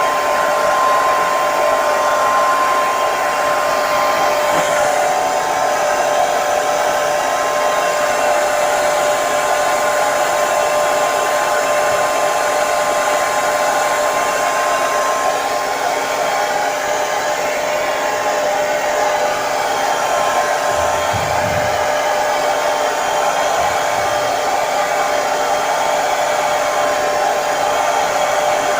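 Hair dryer running steadily: an even rush of blown air with a constant motor whine.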